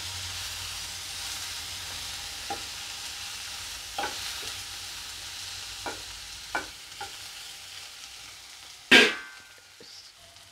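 Chopped onion and tomato sizzling in ghee in a non-stick kadai, with a spatula scraping and tapping the pan as they are stirred. The sizzle fades, and about nine seconds in there is one loud knock.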